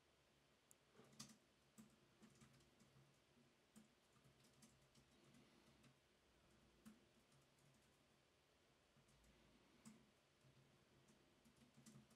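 Faint, scattered clicks and taps of hands handling parts and paper on a tabletop, the loudest about a second in and a cluster near the end.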